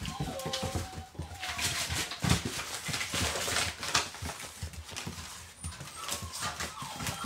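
Puppies whimpering briefly just after the start and again faintly near the end, with crinkling and rustling of a dog food bag being torn at and paws scuffling in between.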